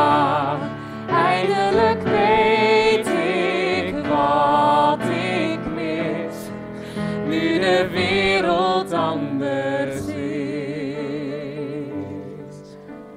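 A man and a woman singing a musical-theatre duet over grand piano accompaniment, holding long sung notes with vibrato. The music grows quieter near the end as the song closes.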